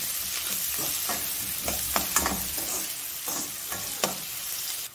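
Chopped onions sizzling in hot oil in a wok while a metal spoon stirs them, scraping and knocking against the pan again and again.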